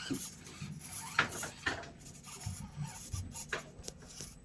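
Axial SCX24 micro crawler working over the course: a faint steady whir from its small electric motor and gears under scattered clicks and scraping as its tyres and chassis rub over the obstacles.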